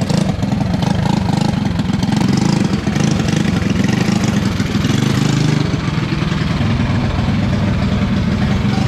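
Box stock racing karts' engines running on the dirt oval as a heat races, a steady, dense drone of several engines that eases slightly in the upper range about halfway through.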